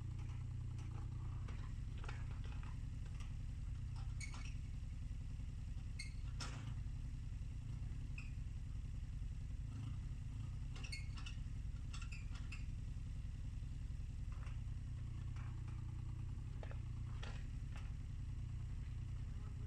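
JCB mini excavator's engine running steadily while the machine digs soil, with scattered clinks and knocks from the bucket and arm.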